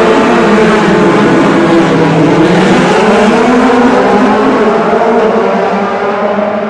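DTM race car engine running hard and loud, its pitch dipping about two seconds in and then climbing again, getting quieter near the end.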